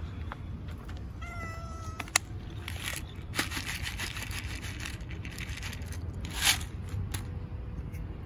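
A domestic cat meows once, a steady call of just under a second, about a second in. Then dry cat kibble rattles out of a plastic bottle onto paving stones, with a louder shake about two-thirds of the way through.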